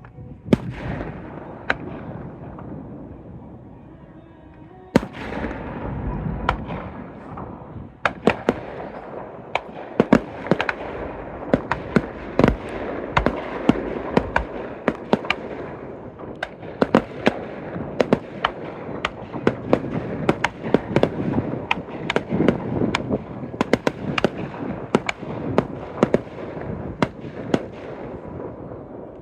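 Fireworks going off: a few single bangs with rolling rumble in the first seconds, then from about eight seconds in a dense barrage of sharp cracks and booms, several a second.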